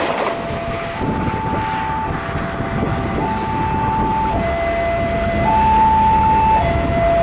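Railway level-crossing warning alarm sounding a steady two-tone signal, a lower and a higher tone alternating about once a second, over a low rumble. The last of a passing train's rail noise cuts off right at the start.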